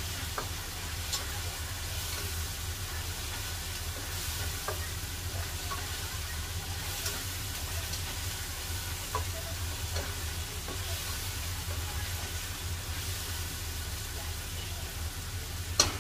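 Ginger, onion and garlic sizzling in oil in a pot while being stirred with a spatula, with faint scrapes of the utensil, over a low steady hum. A few sharp knocks of the utensil against the pot at the end.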